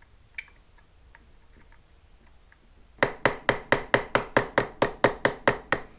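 Small hammer tapping on a Suzuki GS550 BS32 carburetor to free a stuck float pivot pin: a few faint clicks, then about halfway in a quick, even run of about a dozen sharp metallic taps, each ringing briefly.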